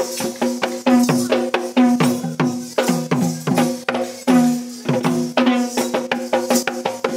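Live drumming on a hand drum in a quick, steady rhythm, each sharp stroke ringing with a tone that drops in pitch, over a faint high jingling hiss.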